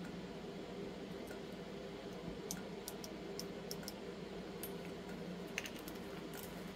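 Faint, scattered light clicks and ticks as a plastic stirrer scoops chunky glitter from a jar and taps it into a heart-shaped resin piece, then is laid down, over a steady low hum.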